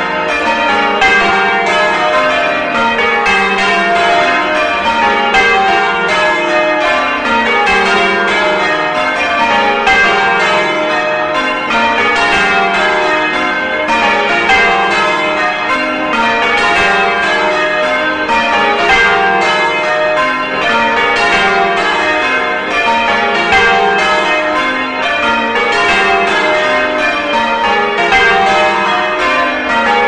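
A ring of cathedral bells being change-rung, heard from inside the bell chamber among the swinging bells: a steady stream of loud, clanging strikes, each row stepping down from the highest bell to the lowest, over and over.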